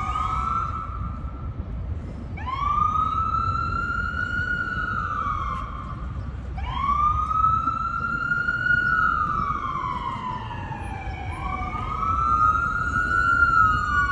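Emergency vehicle siren on a slow wail. Each cycle rises quickly, holds, then falls slowly, and repeats about every four to five seconds, with a second siren overlapping near the end, over a steady low rumble.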